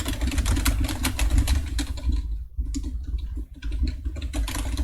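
Fast typing on a Perixx PERIBOARD-106 computer keyboard: a quick, uneven clatter of key presses that pauses briefly about halfway, over a steady low hum.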